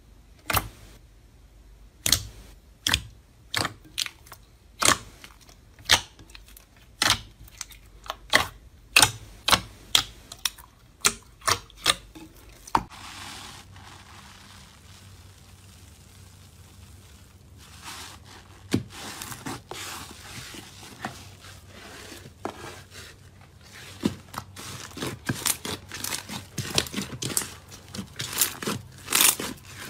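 Slime being squeezed and poked: a run of sharp pops and clicks about once a second, a stretch of softer crackling around the middle, then quicker pops near the end.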